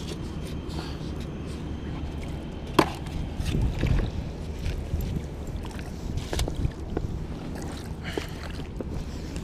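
Landing net being handled and dipped in the water at a rocky shoreline: a sharp knock a little under three seconds in, then a brief slosh, with scattered small clicks and wind rumbling on the microphone.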